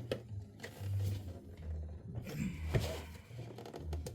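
Plastic Pontiac Fiero tail-light lens and housing being squeezed together by hand, with a few sharp clicks and knocks as the parts are worked into their clips.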